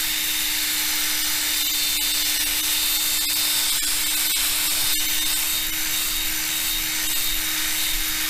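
Drill running steadily, spinning a sanding disc that wet-sands a scratched, hazy plastic motorcycle windscreen: a constant motor hum under the hiss of the abrasive rubbing on the plastic, with a few light clicks near the middle.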